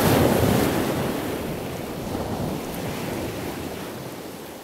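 Ocean surf with wind, a steady rushing noise that fades out gradually.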